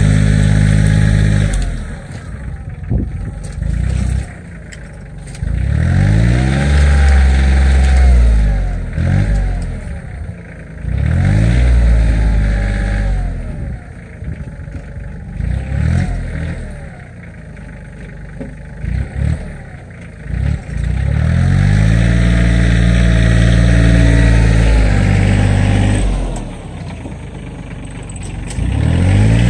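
Kioti CK2610 compact tractor's diesel engine revving up and easing off again several times as it works, its pitch and loudness rising and falling in long swells.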